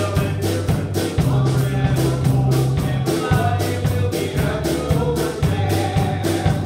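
Upbeat gospel hymn accompaniment: an electric bass guitar plays held notes that change every second or so over a steady drum beat.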